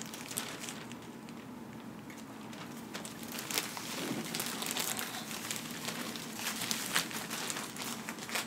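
Thin disposable plastic bib crinkling and rustling in the hands as it is unfolded and tied around the neck, with scattered small crackles that pick up about three seconds in.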